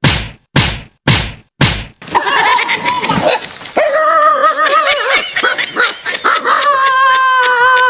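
A dog barking sharply, about two barks a second, then breaking into a long wavering howl.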